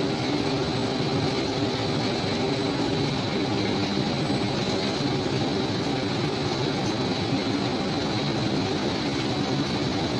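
Textile fabric-winding machine running, rolling cloth onto a roll: a steady, even mechanical drone with a faint high whine.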